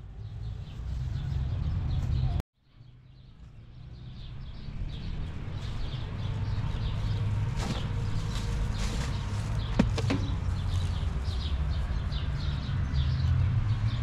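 Outdoor park ambience: a steady low wind rumble on the microphone under small birds chirping over and over, with a short knock about ten seconds in as a plastic bag of rubbish is dropped into a bin.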